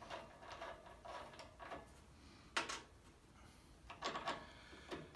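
Faint metallic clicks and scrapes as the arbor nut is unscrewed from the blade arbor of a Grizzly G0715P table saw, with one sharper click about two and a half seconds in and a few more near the end.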